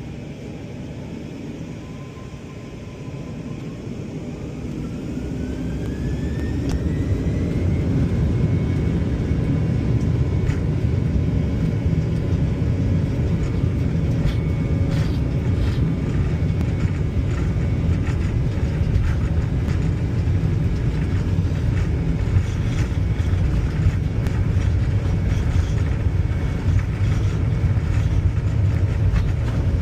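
Airliner jet engines spooling up to takeoff thrust, heard from inside the cabin. A whine climbs in pitch over the first several seconds as the engine noise grows, then a loud steady rumble holds through the takeoff roll, with scattered knocks and rattles.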